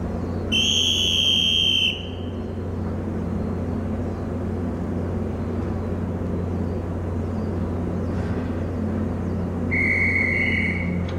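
Ferry's engines running with a steady low hum, under hand-whistle signals from the crew at casting off: one long, high whistle blast about half a second in, then near the end two whistles of different pitch sounding together for about a second.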